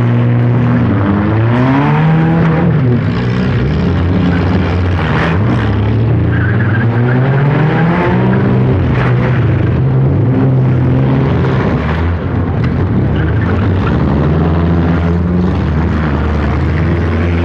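Four-cylinder demolition derby cars' engines running hard and revving, the pitch climbing twice as drivers floor it, about a second in and again about seven seconds in. A few sudden bangs of impact come through around the middle.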